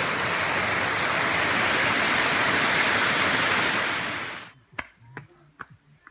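A waterfall's water rushes in a steady, loud roar that cuts off abruptly about four and a half seconds in. A few sharp clicks follow against near-quiet.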